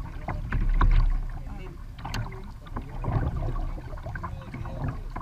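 Kayak paddling: a double-bladed paddle dipping and pulling through the water in uneven strokes, with splashes, drips and water lapping against a plastic sit-on-top kayak hull over a low, fluctuating rumble.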